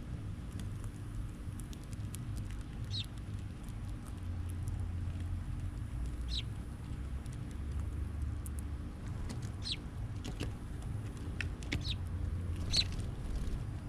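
Small birds at a feeder giving about five short, high single chirps a few seconds apart, over a steady low rumble.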